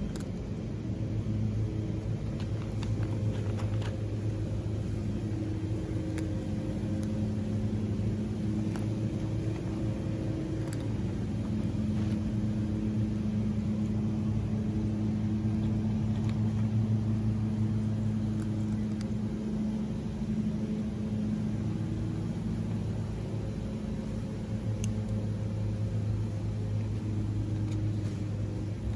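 A motor running steadily with a low, even hum that swells and eases slightly, with a few faint clicks.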